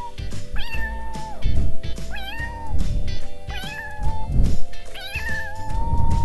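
Kittens meowing about four times, high thin calls that rise and then hold briefly, over background music.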